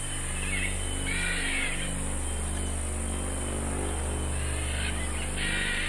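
A low, steady musical drone with pulsing tones under a constant high buzz of rainforest insects, with two short bursts of chirping calls, one early and one near the end.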